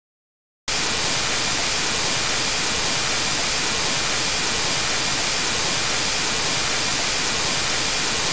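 Loud, steady static hiss of white noise, cutting in abruptly just under a second in after dead silence.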